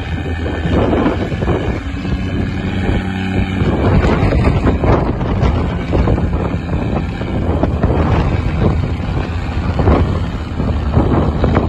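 Land Rover Discovery Td5's five-cylinder turbodiesel running steadily under load as the 4x4 pulls through deep mud, with wind buffeting the microphone.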